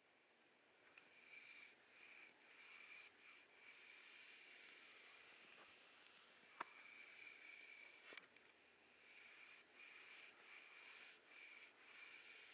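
Faint massage friction sounds: soft swishing strokes that come and go in a loose rhythm, with one small click about six and a half seconds in.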